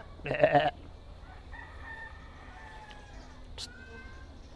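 A goat bleats once, short and loud, just after the start; a rooster crows faintly a second or so later.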